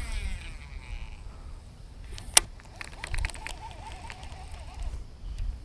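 Wind rumbling on the microphone while a fishing rod and reel are handled, with one sharp click about two and a half seconds in and a faint wavering call in the middle.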